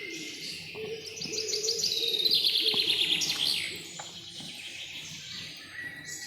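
Forest birdsong: a bird sings a loud, rapid trill of repeated notes that falls in pitch, starting about a second in and lasting a couple of seconds. A lower wavering call from another bird sounds underneath in the first part, with scattered chirps around it.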